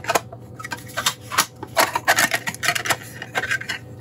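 Hard 3D-printed plastic enclosure parts clicking and clattering as they are handled and pressed together, an irregular series of sharp clicks and taps, several a second.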